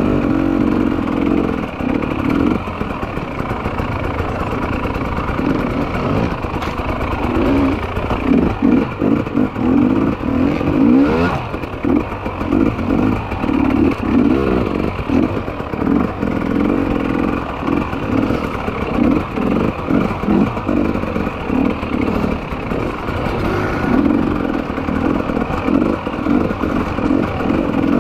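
Two-stroke 300 cc enduro motorcycle engine heard on board, revving up and down continuously as the bike is ridden over a rough trail.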